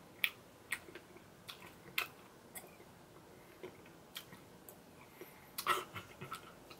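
Faint mouth sounds of someone eating ice cream cake off a spoon: scattered soft clicks and smacks, with a slightly louder little cluster near the end.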